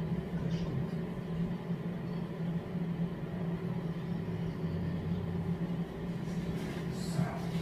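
Steady low mechanical hum, unchanging throughout, with a brief scratchy noise near the end.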